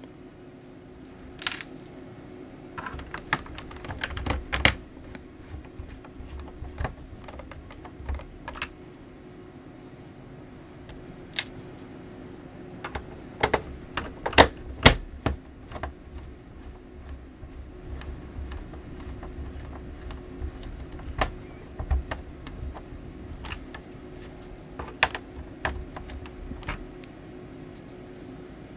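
Irregular clicks, taps and knocks of hands handling a plastic laptop case and fitting its bottom cover panels, with a cluster of sharper clicks about halfway through.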